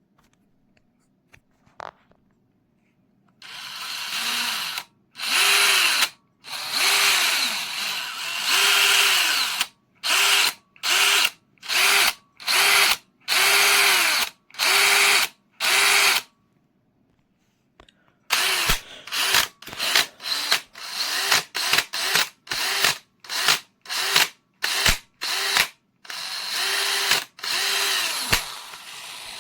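BLACK+DECKER BL188KB 18V cordless brushless drill run in repeated trigger pulls. After a silent start, it gives one longer run, then about a dozen bursts of about a second each. After a pause come quicker short bursts about two a second, and a longer run near the end. Each burst rises in pitch as the motor spins up and falls as it winds down.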